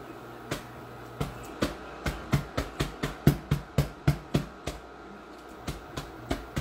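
Wooden meat-tenderizing mallet pounding pecans in a plastic bag on a countertop to crush them. A few separate blows are followed by a fast run of about four a second, a brief pause, and then the pounding resumes near the end.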